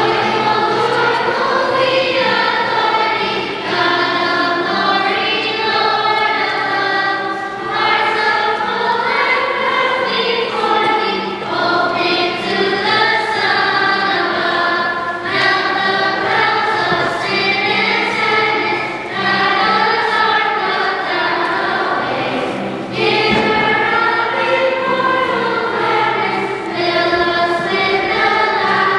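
A choir singing a hymn in sustained phrases, with a short break between phrases about every seven or eight seconds.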